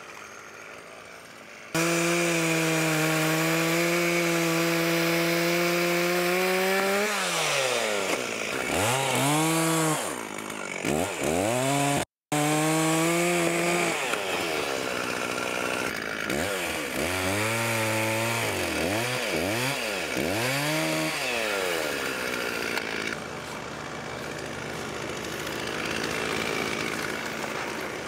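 Two-stroke chainsaw held at steady high revs through a cut for several seconds, then revved up and down repeatedly between cuts, running more softly near the end.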